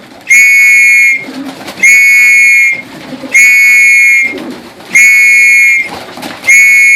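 Loud, steady high-pitched call signal sounded in five blasts of just under a second each, about a second and a half apart, used to call racing pigeons in to the loft.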